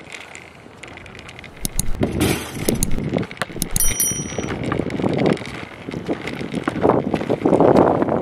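Small kick scooter's wheels rolling over rough asphalt, getting louder near the end. A short, high, bell-like ding comes about four seconds in.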